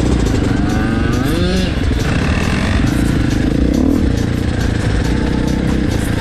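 Dirt bike engines running, heard from on the rider's own bike. The engine pitch rises as the throttle opens about a second in, and again near four seconds in.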